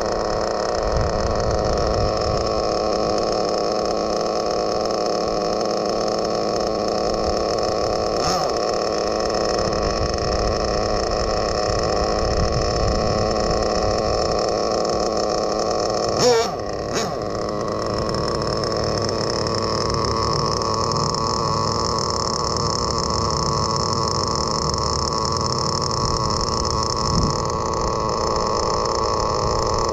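Kyosho FW06 nitro touring car's .12 glow engine idling steadily and evenly, purring like a sewing machine on a good tune. There is a brief sharp blip about halfway through.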